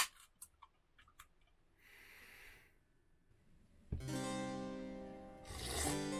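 The pull tab of a sparkling soda water can cracks open with a sharp snap, followed by a few small clicks and a short soft fizz. About four seconds in, harpsichord music starts and runs on, with a brief sip from the can near the end.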